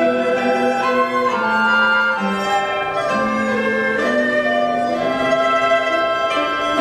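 Chinese traditional instrumental ensemble playing a flowing melody: erhu fiddles and a dizi bamboo flute carry sustained notes, with pipa and yangqin (hammered dulcimer) in the ensemble.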